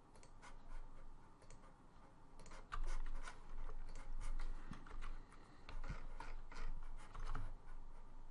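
Irregular clicking of a computer mouse and keyboard keys, sparse at first and coming thicker from about two and a half seconds in.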